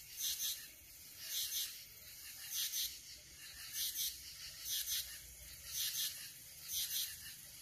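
Night insect calling: a raspy, high double chirp repeated steadily about once a second.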